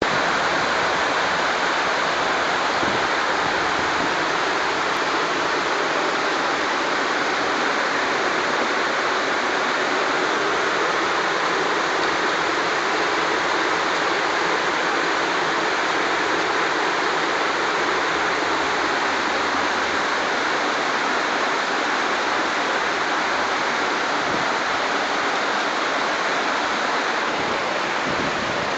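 Rain falling steadily over rooftops and trees: a constant, even hiss.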